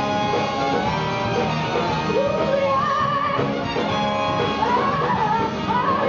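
A soul-rock band playing live: horn section, electric guitars, bass and drums, with a wavering lead melody on top.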